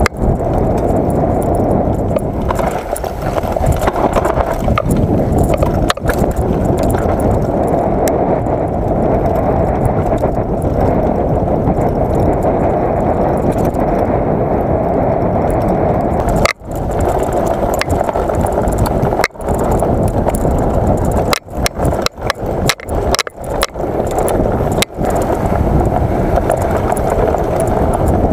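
Mountain bike rolling fast down a dirt singletrack: a steady rumble of tyres and frame rattle over the ground, mixed with wind on the microphone. Several brief dropouts break the noise in the second half.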